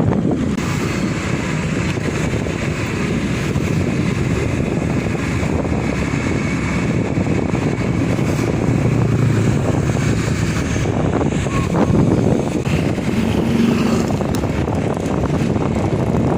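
Wind rumbling on the microphone of a moving vehicle, with engine and road noise underneath; steady, with no clear changes.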